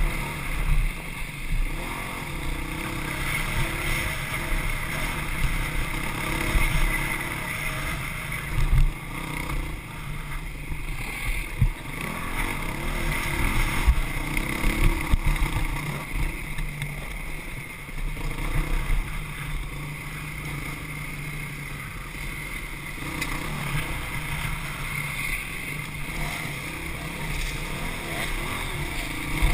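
Honda CRF450X dirt bike engine heard close up while being raced over rough dirt trail, its revs and loudness rising and falling with the throttle.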